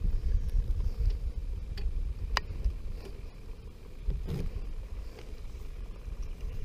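Wind buffeting the camera microphone, a steady low rumble, with a single sharp click about two and a half seconds in and a brief handling noise about four seconds in.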